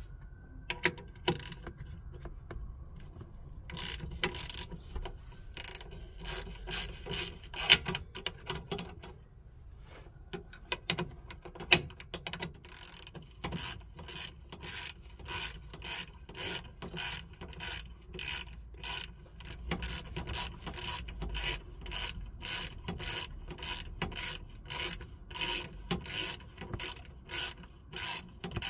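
Socket ratchet clicking as it turns the wheel cylinder's mounting bolt on a drum-brake backing plate, in short runs of pawl clicks, one run per back-stroke. The strokes come irregularly at first and then settle into a quick, even rhythm.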